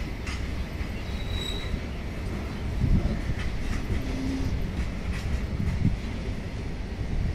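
Loaded freight train of covered wagons rolling past: a steady low rumble with the wheels clacking over rail joints.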